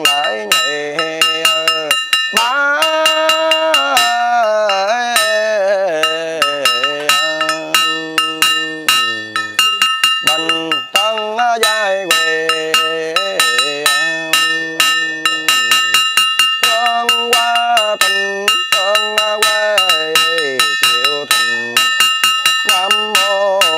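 A Buddhist monk chanting a funeral liturgy in a melodic voice, holding long sliding notes. A small bell is struck rapidly and evenly throughout, its ringing tones carrying under the chant.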